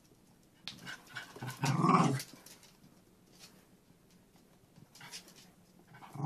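Small terriers play-fighting, one giving a rough growl of about a second and a half about a second in, and a brief faint sound later on.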